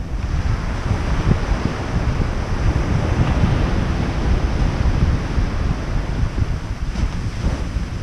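Ocean surf washing onto a sandy beach: its hiss swells soon after the start and fades near the end, over low wind buffeting on the microphone.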